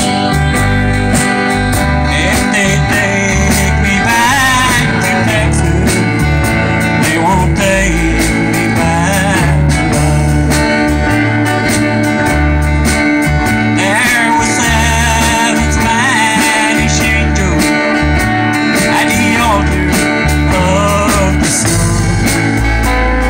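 Live country band playing: acoustic rhythm guitar, electric lead guitar, bass guitar and drum kit, with a steady beat.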